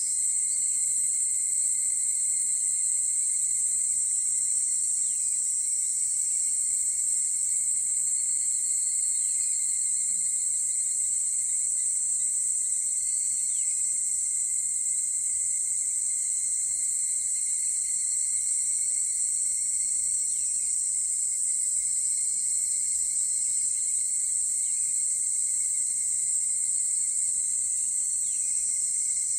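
Chorus of higurashi (evening cicadas, Tanna japonensis) calling together, blending into a steady, high-pitched ring.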